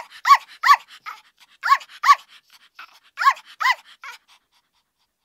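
Short squeaky chirps in three pairs, each chirp rising then falling in pitch, with faint clicks between them.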